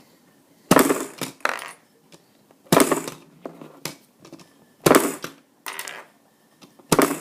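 Bison B-daman marble shooter firing repeatedly: four sharp plastic clacks about two seconds apart, each followed by a lighter clatter of marbles.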